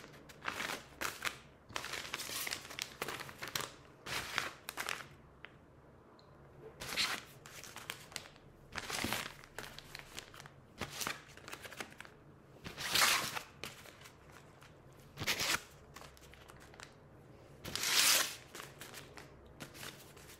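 A stack of small paper envelopes being flipped through and fanned out by hand: the paper rustles and crinkles in short irregular bursts every second or two, the loudest ones in the second half.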